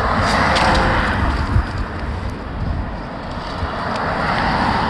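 Outdoor background noise: wind rumbling on the microphone over a steady hiss of road traffic.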